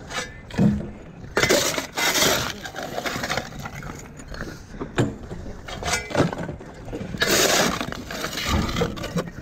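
Demolition debris breaking and clattering: irregular knocks and clinks, with two longer rough stretches of breaking noise, one about a second and a half in and one near the end.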